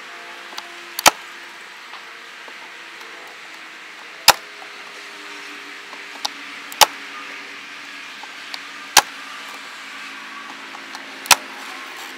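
PVC balusters snap-locking into the routed holes of a vinyl railing's bottom rail: five sharp clicks, roughly every two to two and a half seconds, as each notched baluster is pinched and pushed home. A steady low hum runs underneath.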